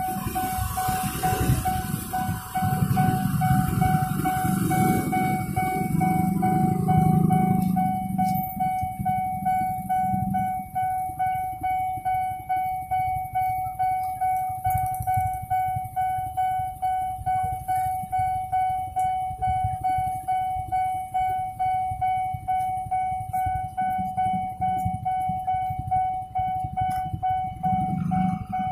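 Railway level-crossing warning bell ringing, an even electronic ding repeating about twice a second. For the first several seconds motorcycle and car engines are heard under it, then they fade.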